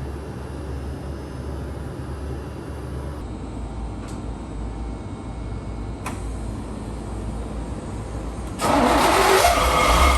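1981 Corvette C3's 350 V8 starting up loudly about a second and a half before the end, after a low steady rumble and a couple of faint clicks.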